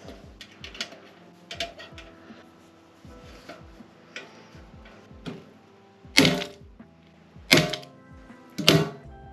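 Light metallic tapping and clicking from hand-tool work on metal parts, then three loud ringing hammer strikes on metal a little over a second apart near the end, over faint background music.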